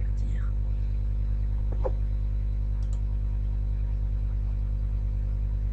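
Steady low electrical hum picked up by the recording microphone, with a couple of faint computer mouse clicks.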